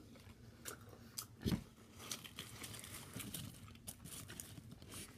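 Biting into and chewing a double bacon cheeseburger close to the microphone: many small wet clicks and crackles of chewing, with one low thump about one and a half seconds in.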